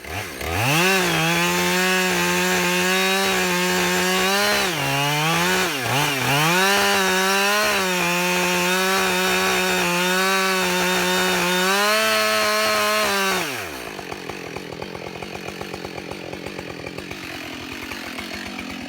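Husqvarna 572XP two-stroke chainsaw with a 24-inch bar running at full throttle while cutting through the trunk on one side of a bore cut. The engine note dips twice about five seconds in, then the throttle is released about 13 seconds in and the saw drops to idle.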